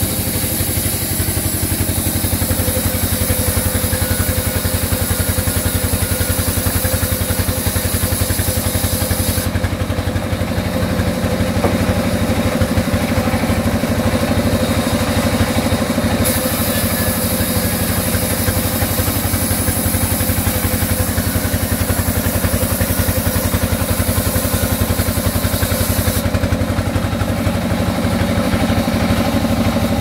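Large sawmill band saw running steadily as mango wood is fed through it, a constant engine-like machine drone. A high hiss over the drone drops out twice for several seconds.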